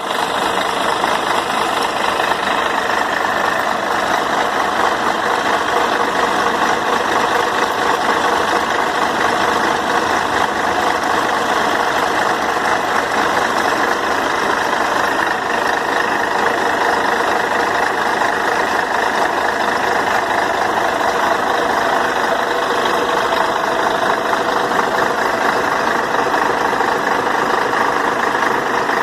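Diesel engine of Viação Cometa coach no. 7455 idling steadily, with no revving or change in pitch.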